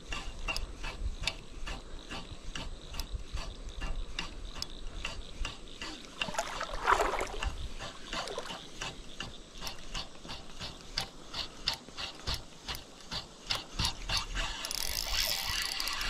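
Spinning reel being cranked to retrieve a lure, its gears clicking steadily about three times a second. A brief gliding whistle-like tone sounds about seven seconds in.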